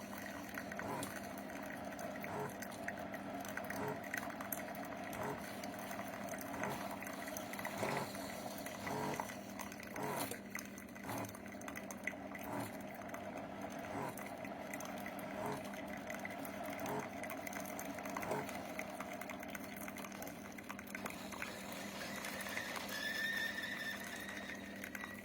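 Single-serve pod coffee maker brewing: a steady pump hum with faint regular clicks as hot coffee runs into the mug. The hum dies away about three-quarters of the way through as the brew finishes.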